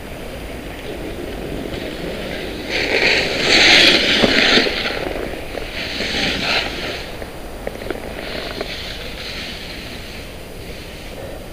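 Trikke Skki skis scraping over hard-packed snow through carving turns: three swelling, hissing scrapes a couple of seconds apart, the first and loudest about three seconds in, over steady wind rush on the microphone.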